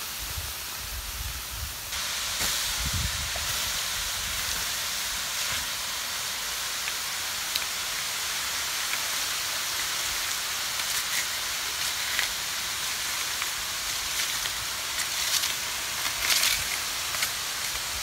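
A bed of hot charcoal and stones hissing steadily, the hiss starting about two seconds in. Near the end come a few sharp clicks of stones knocked by a raking stick.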